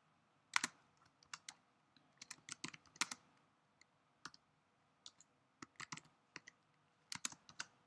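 Typing on a computer keyboard: irregular keystrokes in short clusters with pauses between them.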